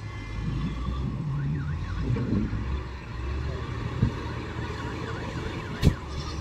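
Diesel engine of an SDLG wheel loader running as it tips a bucket of coke into a dump truck. A faint warbling alarm tone rises and falls twice in the background, and there is a sharp clank near the end.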